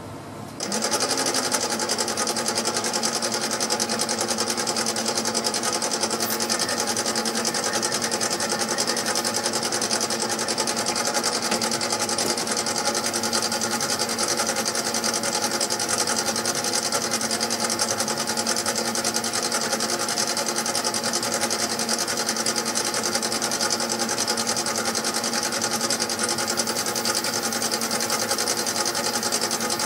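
Mini lathe running steadily while turning a Delrin bar with a carbide insert; its motor and gear train give an even whine with several fixed tones. The sound comes in suddenly about half a second in.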